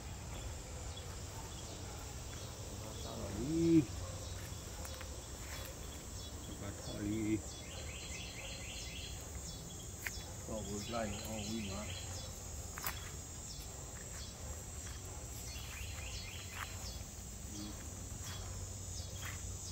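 Insects chirping in short pulsed trills that come and go, over a steady outdoor background hum. A few brief voice-like calls cut in, the loudest a short rising one about three and a half seconds in.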